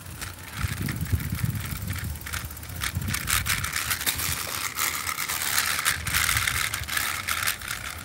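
Bicycle rolling along a paved road and sidewalk, with the frame rattling over the surface and a steady tyre hiss. Wind gusts buffet the microphone.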